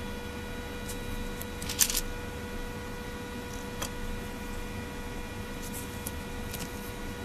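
Light clicks and taps of small parts and tools as a BlackBerry Curve 8900 phone is taken apart, a quick cluster about two seconds in being the loudest, over a steady electrical hum.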